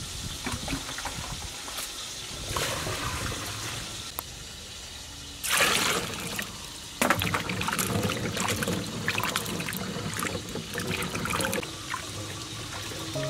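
Water poured from a container over jujube fruits in a stainless steel bowl, a loud rush lasting about a second and a half near the middle. Then hands swish and rub the fruits in the water, with many small splashes and knocks.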